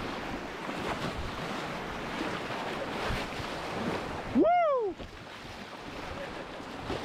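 Fast river water rushing and splashing around a canoe running a riffle, with wind on the microphone. About four and a half seconds in, a person lets out a short whoop that rises and then falls in pitch.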